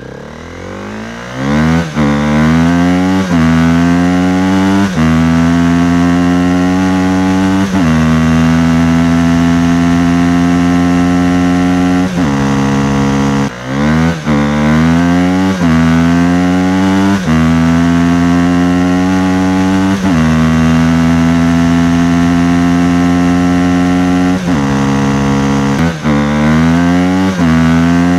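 Motorcycle engine accelerating up through the gears: each rise in revs is cut by a brief dip at the shift, with stretches of steady cruising between. About halfway through the revs fall away almost to nothing, then it pulls up through the gears again.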